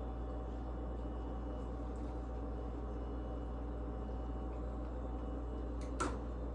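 Steady low hum and hiss of room or appliance noise, with a single brief knock near the end.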